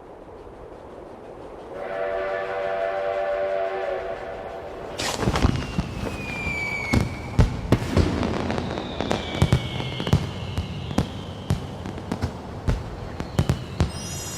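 A rushing sound swells, then a steam train whistle sounds one steady chord for about two and a half seconds. From about five seconds in, fireworks go off: repeated sharp bangs and crackles with whistling rockets that fall in pitch.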